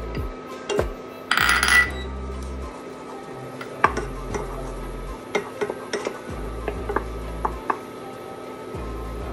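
Wooden spoon tapping and scraping in a nonstick saucepan as butter melts on an induction hob, with a clink from the small glass dish and a brief loud rush of noise about a second and a half in. Under it, a low hum switches on and off every couple of seconds.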